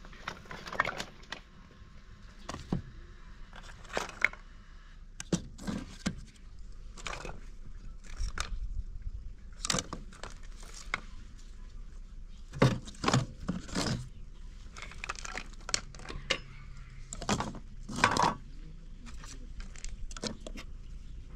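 Scattered clicks, clinks and knocks at irregular intervals, as of objects being handled, over a low background haze, with a faint low hum for a few seconds in the middle.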